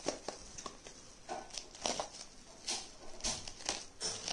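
Plastic bubble wrap crinkling and rustling in the hands as it is pulled open, in scattered crackles and clicks.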